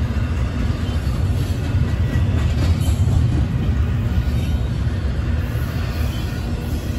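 Double-stack container train's well cars rolling past close by: a steady low rumble of steel wheels on the rails.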